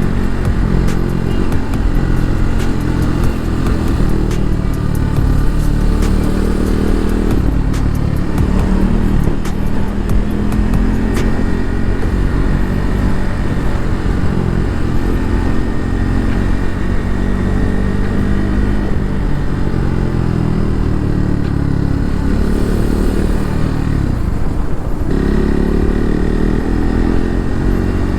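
KTM RC 390's single-cylinder engine running on the move, revs rising and falling with throttle and gear changes, with an abrupt change in engine note near the end.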